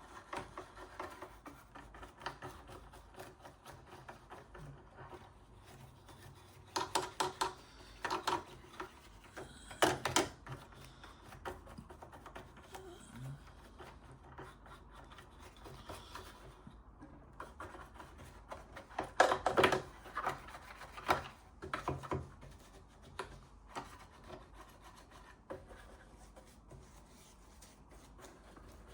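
Hand scrubbing of oily grime off the metal parts of a Wilesco D32 model steam engine, in short bursts of quick rubbing strokes with quieter pauses between.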